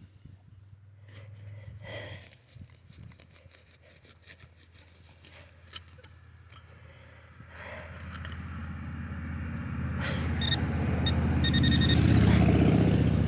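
Soil and small stones scraping and rubbing under hands in a dug hole, then a vehicle passing, swelling to its loudest about twelve seconds in. Short electronic beeps from the metal detector come and go near the end.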